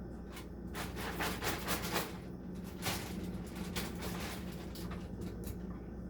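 Irregular light clicks, scrapes and rustles of kitchen things being handled, over a steady low hum.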